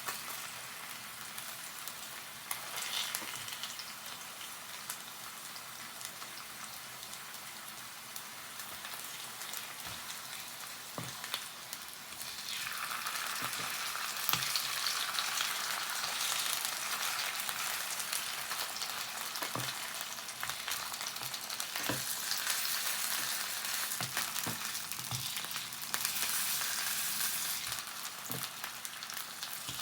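Salmon frying in a pan, a steady sizzle that grows louder about twelve seconds in, with a few light knocks of a utensil against the pan.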